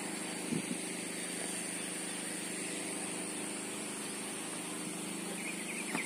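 A small engine running steadily at an even pitch, with a thin steady high-pitched hiss above it.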